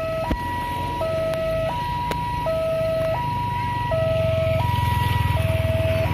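Electronic level-crossing alarm sounding a repeating two-tone pattern, a lower and a higher tone alternating about every three-quarters of a second. It is still going although the train has already passed. From about two-thirds of the way in, a motorbike engine runs close by as it crosses the tracks.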